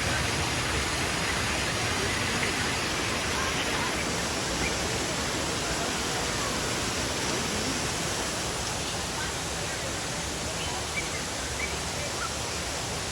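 Steady rushing of a waterfall, with a few faint, short bird chirps scattered through it.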